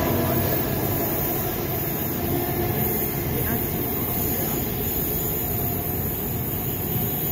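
Electric metro train pulling out of the station and moving away, its running noise easing off in the first second or so and leaving a steady background hiss and rumble.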